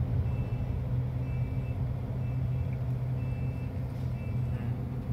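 Mobile crane's engine running steadily, heard from inside the cab, with a high warning beeper sounding about once a second.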